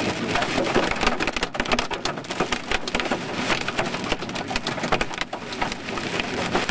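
Large hailstones pelting the car's roof and windshield, a dense, irregular clatter of hard hits, heard from inside the car. Some of the hail may be golf-ball-sized.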